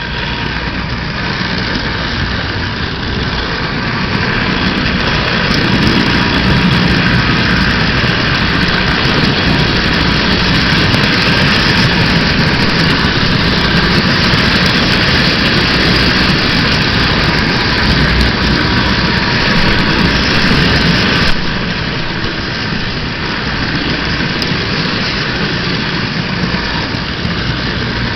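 Model train running on its track, picked up by a camera car riding in the train: a steady, loud rumble of motor and wheels. It swells over the first few seconds and drops noticeably in level about three-quarters of the way through.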